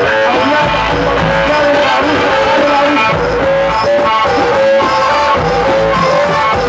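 Music: a melody of held, bending notes over a steady bass line, in a Middle Eastern style.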